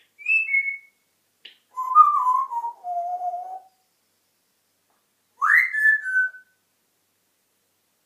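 African grey parrot whistling three short phrases with pauses between: a quick two-note whistle, a longer one sliding down in pitch, and a last one that swoops up and falls away.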